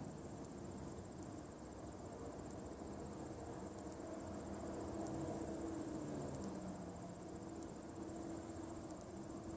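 Low droning hum made of a few steady tones that slide slowly from one pitch to another, over a faint steady high-pitched trill.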